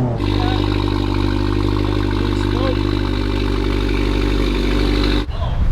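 2024 Subaru WRX's turbocharged 2.4-litre flat-four engine running at a steady speed, without revving. It starts abruptly and cuts off sharply about five seconds in.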